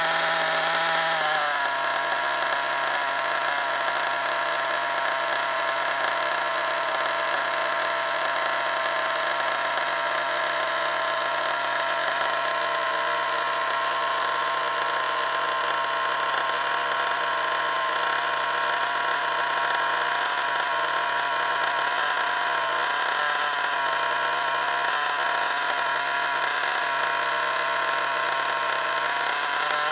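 Small single-cylinder two-stroke nitro glow engine of an RC car idling steadily while it warms up. Its speed eases down slightly about a second and a half in and then holds even.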